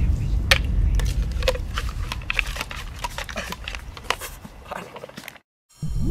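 Scattered small clicks and taps of a coin and a plastic scoop being handled over a plastic bucket, over a low steady rumble, growing fainter. Near the end the sound cuts out briefly, then a rising whoosh begins.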